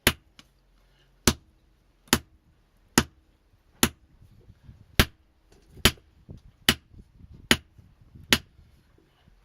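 Blacksmith's hammer striking metal in a steady rhythm of about ten sharp, ringing blows, roughly one a second, as a piece is forged flat, with faint small knocks between the later blows.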